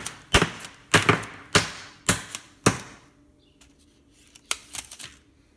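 A knife stabbed hard and repeatedly through the plastic film into a microwave lasagna tray: sharp strikes about two a second, stopping a little under three seconds in, followed by a few light clicks and rattles.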